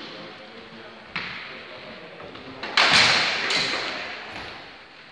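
Training swords striking in a sparring bout: a sharp crack about a second in, then two louder hits close together near the three-second mark that ring out and fade slowly in a large echoing hall.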